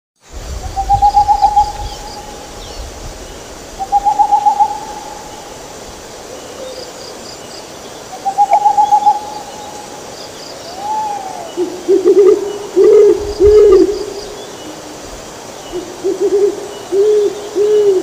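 Owls hooting over the steady rush of a shallow river running through rocks. There are three quavering, trilled calls in the first half, then from about twelve seconds on a run of lower, rapid hoots.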